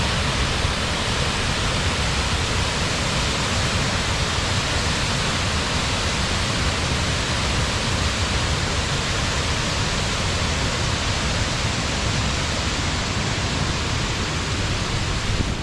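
Waterfall plunging into its pool, a loud, steady rush of falling water heard close to the base, within reach of its mist.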